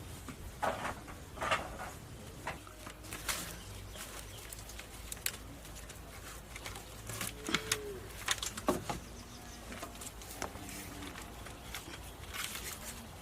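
Scattered short clicks, knocks and rustles of hand work with natural materials, with one short low bird call, rising and falling, about seven seconds in.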